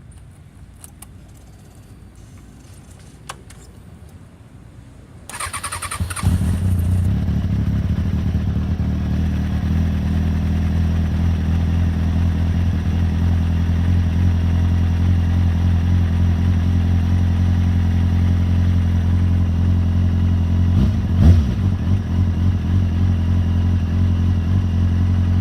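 2004 Kawasaki Ninja ZX-6R's 636 cc inline-four cranked on the electric starter for about a second, about five seconds in. It catches and settles into a steady idle, run to warm the oil before an oil change. A single short swell in the engine sound comes late on.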